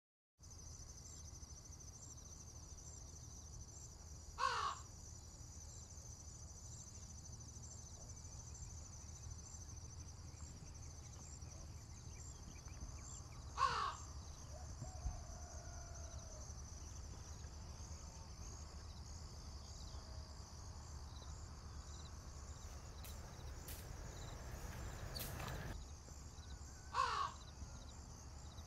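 Crow cawing three single times, each a short falling call, several seconds apart, over a steady high-pitched drone and a low rumble. Near the end a noise swells and then cuts off suddenly.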